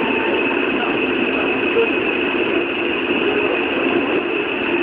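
Tokyo Metro 03 series subway train with Hitachi chopper control running through a tunnel, heard from inside the car: a steady, even running noise of wheels on rails.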